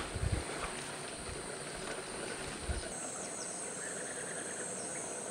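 Steady high-pitched chorus of insects such as crickets or cicadas. The chorus changes and grows louder about three seconds in. A few soft low thumps come in the first three seconds.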